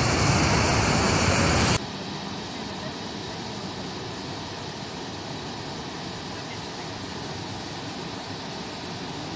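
Floodwater cascading down the benches of an open-pit coal mine, a steady rushing noise. It is loud at first, then drops suddenly about two seconds in to a quieter, even rush.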